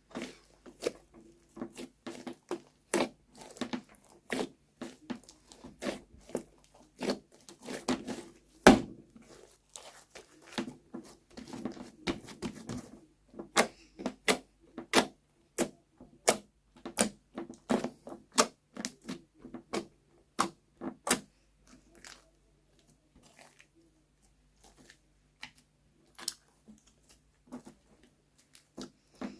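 Slime being squeezed and worked by hand, giving rapid irregular sticky clicks and crackles, with one louder knock about nine seconds in. The clicks thin out and grow quieter after about twenty-two seconds.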